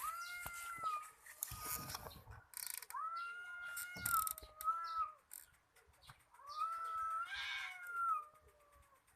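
Cats yowling as in a fight: three long drawn-out wails, each holding one pitch and sliding down at the end, with scattered clicking and rattling between them.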